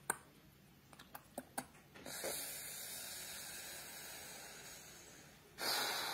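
A few light clicks, then a steady hiss that starts suddenly about two seconds in, slowly fades, and jumps louder again near the end.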